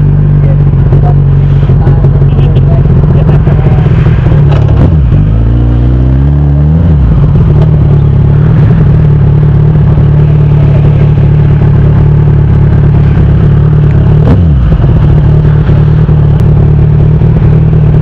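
Liter-class sport bike's inline-four engine idling steadily close to the microphone. The rider revs it briefly about five seconds in, and there is a second short blip around fourteen seconds in.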